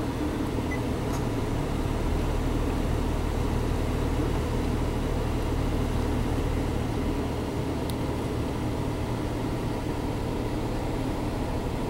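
Small car's engine idling while the car stands still, a steady low hum heard from inside the cabin, with a faint click about eight seconds in.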